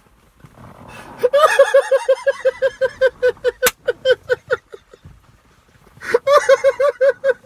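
Men laughing hard in rapid, high-pitched 'ha-ha-ha' pulses, about five a second, starting about a second in, breaking off for a moment past the middle and starting up again. One sharp smack cuts through the laughter partway through.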